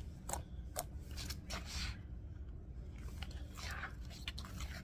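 Sticky, under-activated slime being stretched and squeezed by hand: a run of sharp clicks and pops with two longer squelches as it pulls off the fingers and the table.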